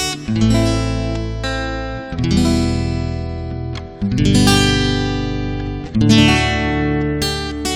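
Instrumental music: acoustic guitar chords strummed about once every two seconds, each left to ring out.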